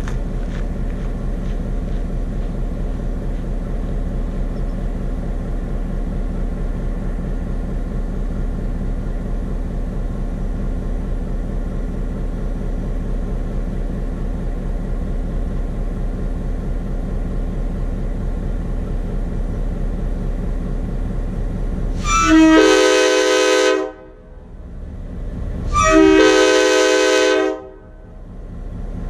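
Locomotive diesel engine idling with a steady rhythmic rumble, heard from inside the cab, then two blasts of a Nathan K5LA five-chime air horn about 22 and 26 seconds in, the first about two seconds long, each a sustained chord of several notes. The owner calls it not a healthy voice and thinks the horn may need to be taken off and gone through.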